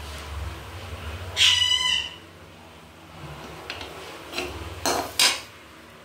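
A metal slotted spoon stirring thick curry in a metal kadai, with two sharp clinks against the pan near the end. A loud, short pitched cry cuts in about a second and a half in.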